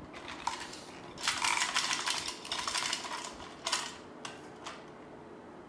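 Hard plastic toys clattering and rattling as they are handled on a tabletop: a dense run of clatter lasting about two seconds, then a few single clicks.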